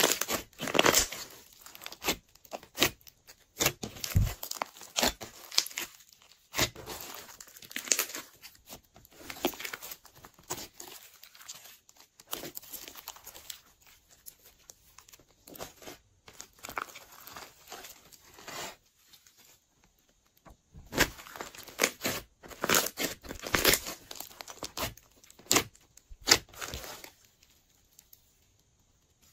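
Hands squeezing, pulling and stretching a large soft slime: irregular runs of sticky clicks, crackles and pops as air pockets burst, with brief pauses.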